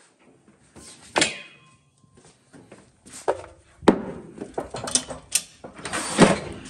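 Packages and cargo being handled inside a box truck's cargo area: several sharp knocks and thuds with scraping and rustling between them, the loudest near the end.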